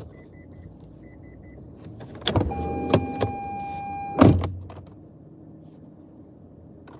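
A car's power window motor whining steadily for about two seconds, ending in a thump as the glass stops. Before it, two sets of three short, faint beeps.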